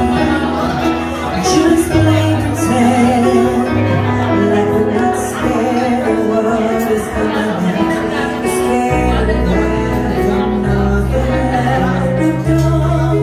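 A woman singing a slow ballad into a microphone, with a keyboard playing sustained bass notes and chords under her. It is heard live through a restaurant's sound system, in the room.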